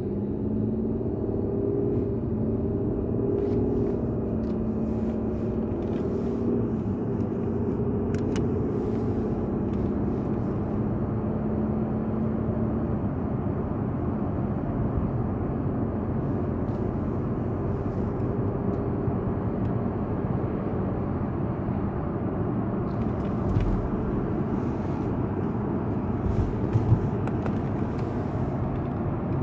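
Steady low rumble of an Audi A6 C6 running, heard from inside the cabin.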